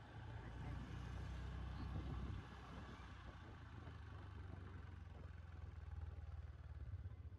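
Low, steady rumble of a motor vehicle running, slightly stronger for the first couple of seconds and then easing a little.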